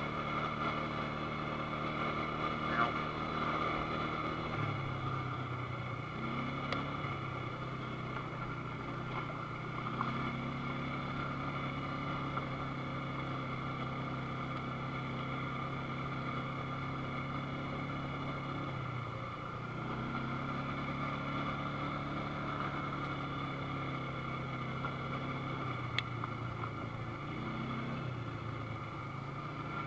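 ATV engine running while riding, its note dropping and rising several times as the throttle is eased off and opened again.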